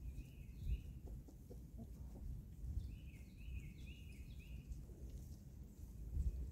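Birds calling in two short runs of quick, high notes, over a low rumble with a few soft thumps.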